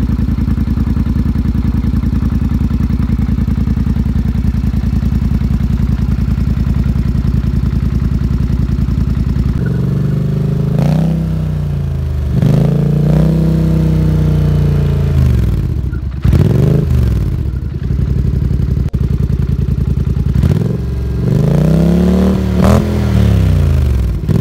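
Polaris Scrambler XP 1000's parallel-twin engine idling steadily through Big Gun EVO-U dual exhausts. From about ten seconds in it is revved in a series of short throttle blips, each rising and falling in pitch.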